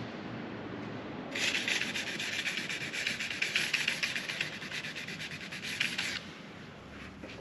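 Hand sanding of a freshly primed sailboat hull with a small sanding pad, in quick back-and-forth strokes. It starts about a second in and stops about six seconds in. She is taking off bits of roller fluff stuck in the first coat of primer.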